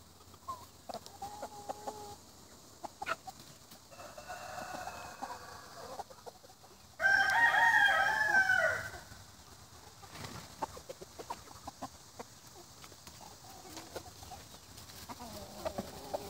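Roosters crowing among clucking chickens: a fainter crow about four seconds in, then a loud close crow lasting about two seconds, with short clucks around them.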